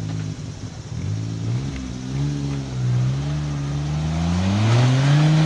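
Off-road 4x4's engine revving under load, its pitch wavering at first, then climbing steadily over the last couple of seconds and holding high.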